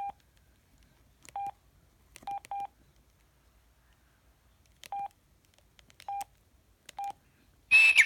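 Samsung SGH-E700 flip phone's keypad beeps: about seven short single-pitch beeps as keys are pressed, two of them in quick succession. Just before the end the phone starts playing a preloaded ringtone melody, much louder than the beeps.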